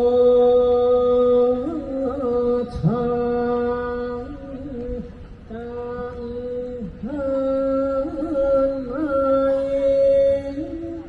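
Thai royal barge chanting (hae ruea): a lead singer holds long drawn-out vowel notes on a steady pitch, with small ornamental turns, in several phrases that break and start again.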